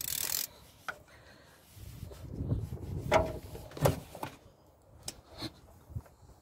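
Strap-type oil filter wrench being worked on the car's spin-on oil filter to loosen it. The strap rubs and creaks, with a brief rustle at the start, sharp knocks about three and four seconds in (the loudest), and a few lighter clicks after.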